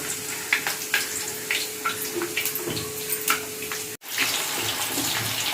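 Potato strips deep-frying in hot oil in a kadai, a dense sizzle full of fine crackles, during the first, pale fry of a twice-fried French fry. A faint steady hum sits under it, and the sound breaks off for an instant about four seconds in.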